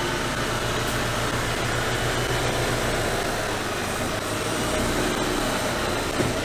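Mercedes-Benz Arocs 8x8 tipper truck's diesel engine running at low revs as the truck drives slowly past, a steady low hum. There is a single short knock near the end.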